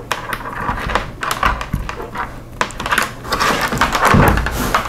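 Christmas light strands and a wrapper clip being handled: irregular small clicks and rattles of bulbs and wire knocking together and against a table, with a duller knock a little after four seconds.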